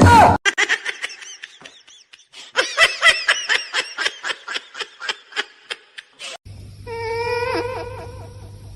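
Laughter: a long run of short, quick bursts, about four a second. About six and a half seconds in it gives way to a low hum and a wavering, drawn-out call.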